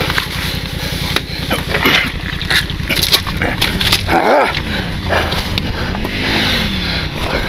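Wind rumbling on the microphone, with scattered clicks and rustles, and a short rising-and-falling cry about four seconds in, followed by a fainter one near six seconds.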